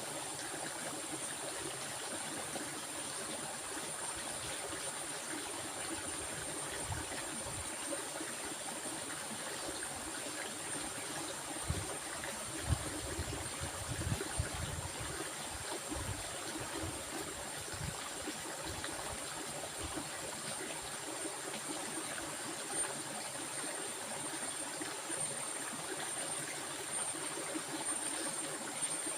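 Stream water flowing steadily, an even rushing trickle with a thin, steady high-pitched hiss above it; a few soft low thumps come through around the middle.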